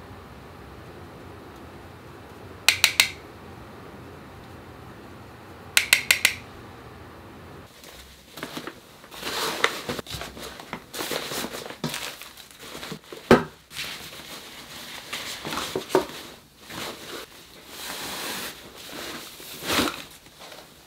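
Plastic makeup palette cases being handled: two quick clusters of sharp clicks a few seconds apart. Then a fabric bag rustles as small items are packed into it, with scattered knocks and one sharp knock about two-thirds through.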